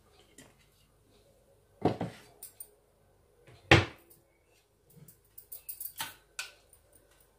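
Kitchen items being handled beside the stove: a knock about two seconds in, a sharper, louder knock near four seconds, then a quick run of light clicks near the end.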